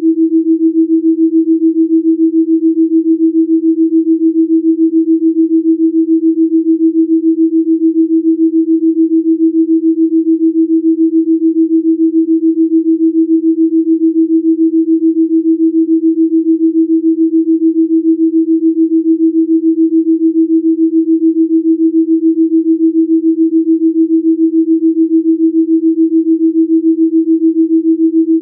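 A delta binaural-beat pure tone: a single steady sine tone whose loudness pulses evenly a few times a second.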